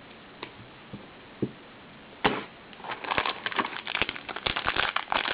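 A few faint clicks, then one sharp crackle a little over two seconds in. From about three seconds in comes a steady, irregular crinkling of a trading-card pack wrapper being handled and opened.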